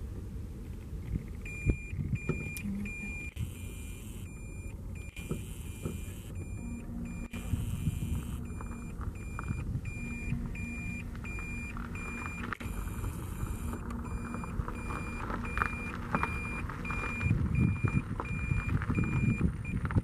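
Electronic beeping, short high beeps repeating about twice a second, starting about a second and a half in and stopping near the end, over a low rumbling noise that grows louder toward the end.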